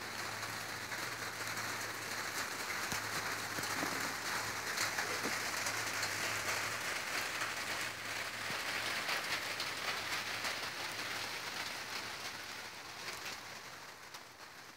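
Steady rain falling, a hiss of water with many scattered drop ticks, easing off somewhat near the end.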